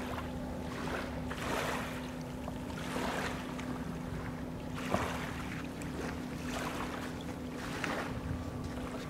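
Small waves lapping and splashing at the water's edge every second or two, over a steady low hum.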